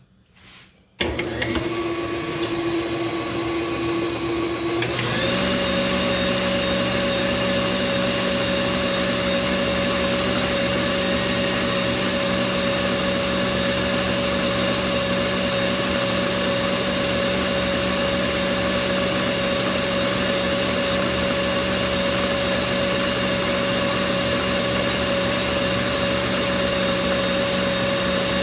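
KitchenAid stand mixer switched on about a second in, its wire whisk beating cake batter in a steel bowl. The motor's steady whine steps up to a higher pitch about five seconds in as the speed is raised, then runs evenly.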